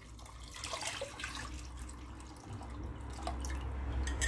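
Banga (palm-nut extract) being poured through a sieve into a pot of meat stock, splashing and dripping into the liquid. A steady low hum runs underneath.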